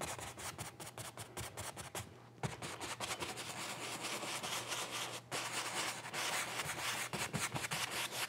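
Paintbrush bristles scrubbing oil paint on a canvas in quick short strokes, a dry scratchy rubbing that eases off briefly about two seconds in. It is the sound of wet-on-wet blending.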